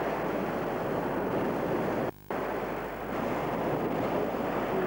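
Small waves breaking and washing onto a shore, a steady rushing of surf. The sound cuts out for a moment about two seconds in.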